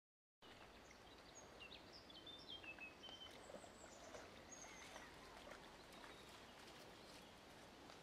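Faint outdoor ambience of a shallow river, a steady hiss of water, with a small bird singing a run of short, quick chirps during the first half.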